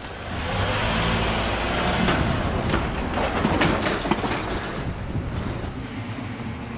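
Electric interurban trolley car rolling along the track, its running noise swelling about half a second in, with a steady low hum under it and a cluster of sharp clicks from the wheels in the middle.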